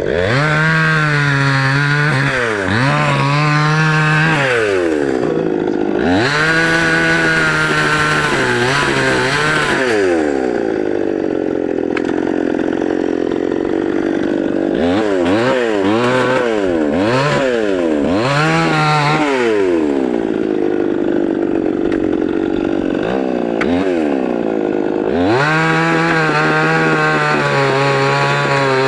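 CNC machine cutting, its motor whine repeatedly rising in pitch, holding steady and falling again as it moves through the cut, with steadier lower stretches between.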